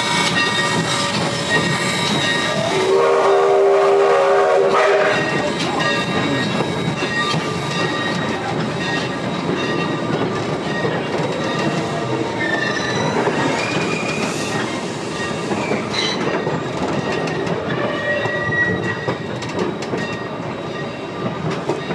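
Steam train passing close by, wheels clacking over the rail joints. Its whistle blows once, a chord of about two seconds, a few seconds in, and thin high squeals run through the passing.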